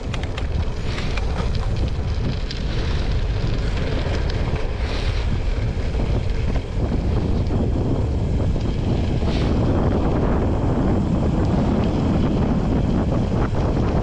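Wind buffeting the microphone of a camera on a moving bicycle, over the crunch and rattle of tyres rolling on a gravel road.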